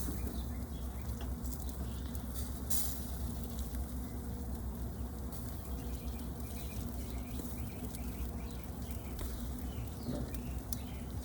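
Chicken sizzling on the grill with many small crackles, over a steady low hum.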